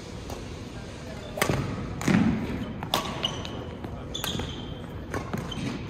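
Badminton rally: several sharp cracks of racket strings striking the shuttlecock, roughly a second apart, with a heavy footfall thud about two seconds in and short shoe squeaks on the wooden court floor.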